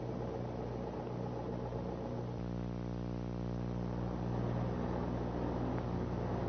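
A light single-engine propeller airplane's engine running steadily. It comes in abruptly about two seconds in, after a low hum and hiss.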